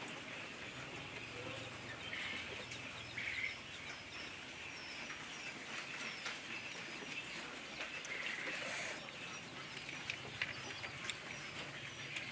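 Newly hatched quail chicks peeping: many short, faint, high chirps scattered throughout, over a steady low hum.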